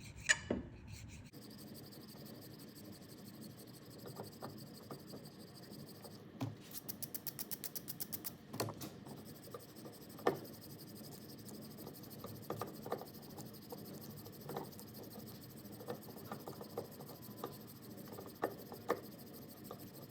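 Light, intermittent strokes of a smooth hand file on cured JB Weld epoxy over a propeller shaft's seal groove, knocking down high spots. About six to nine seconds in comes a quick run of short, even strokes, about seven a second.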